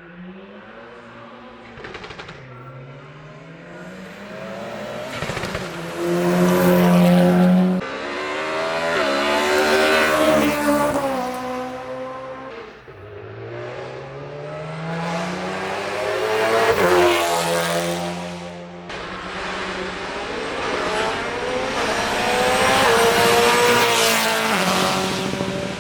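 Hillclimb race car engine accelerating hard away from the start line. The revs climb and drop back again and again as it shifts up through the gears, loud from about five seconds in.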